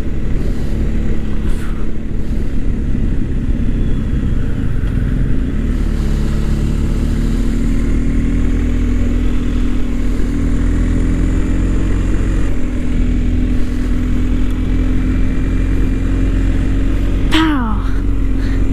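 BMW R1250 GS boxer-twin engine pulling steadily on the road, with wind rush. The engine note climbs from about six seconds in, then drops once about halfway through, like a gear change, and holds steady.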